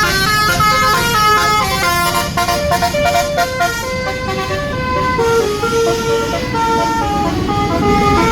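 Bus telolet horn playing a quick melody of pitched notes, one after another, with no pause.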